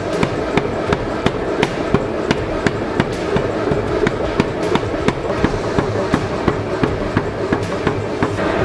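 Power hammer striking a hot steel bar in a steady, even run of blows, about three a second.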